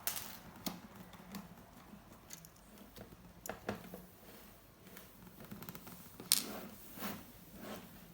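Irregular small clicks and taps of a screwdriver and screws on a laptop's plastic case as its screws are taken out, the sharpest click a little after six seconds in.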